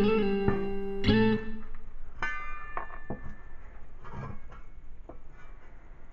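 Background music of plucked guitar notes, each ringing out and dying away, growing quieter over the few seconds.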